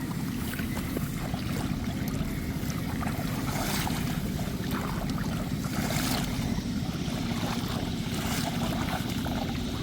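A steady low engine-like drone with rushing water noise over it, swelling louder briefly about four and six seconds in.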